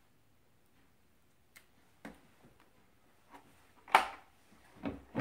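Plastic humidifier parts being handled: a few light clicks and taps, with a louder knock about four seconds in.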